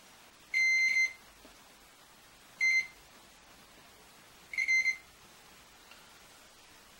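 Three short electronic beeps at one high pitch, about two seconds apart.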